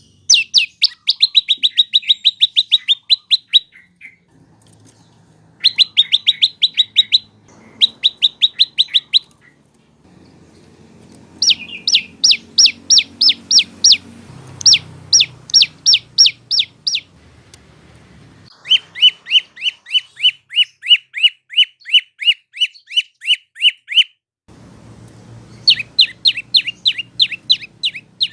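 Prenjak lumut (lancur) songbird singing: bouts of rapid, repeated notes that each slide sharply downward, about five or six a second. Each bout lasts a few seconds, with short pauses between.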